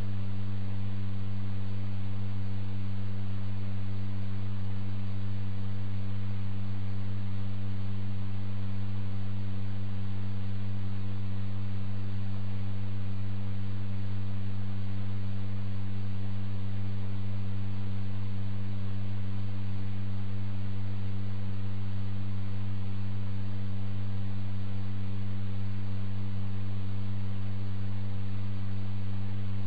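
A steady low hum with fainter overtones above it, unchanging in pitch and loudness.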